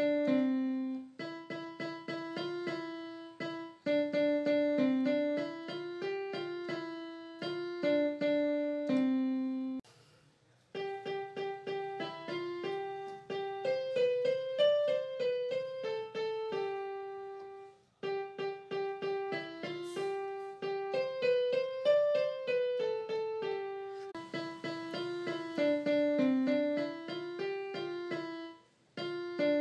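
Background piano music: a light melody played note by note, with brief pauses about ten seconds in and again near eighteen seconds.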